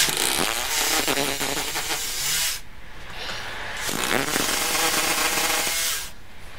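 Cordless drill/driver running in two bursts, the first about two and a half seconds long and the second starting about four seconds in, as screws are driven through a wooden support batten into the wall.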